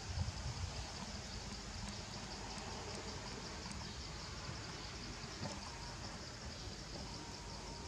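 Forest ambience: a steady, high insect buzz over a low rumble, with a few soft knocks in the first second.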